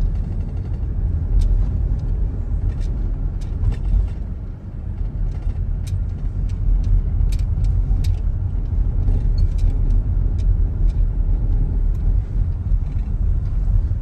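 Steady low rumble of a moving car heard from inside the cabin: engine and tyre noise on a paved road, with scattered light clicks.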